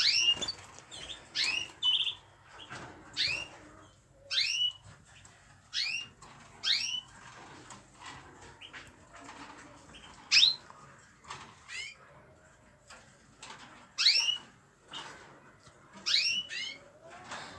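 Small pet cage birds chirping: short, sharply rising calls, one or two a second, some in quick pairs or triplets.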